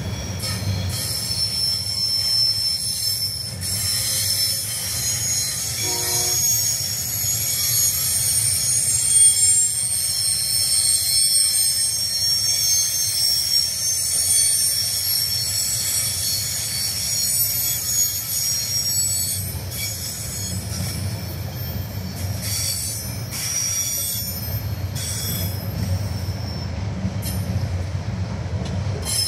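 Container wagons of a TasRail freight train rolling past, their steel wheels squealing high-pitched against the rail over a steady low rumble. The squeal thins out near the end.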